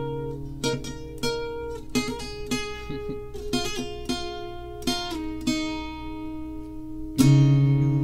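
Background music of a plucked string instrument playing single ringing notes that fade, with a louder strummed chord about seven seconds in.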